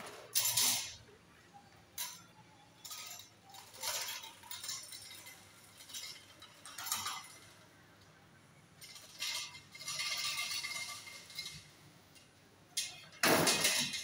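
Stainless steel spice grinder handled by hand while the motor is off: scattered metal clinks, knocks and scrapes as the canister is opened and tipped to empty the ground gram flour into a plate. The loudest knocks come just after the start and near the end.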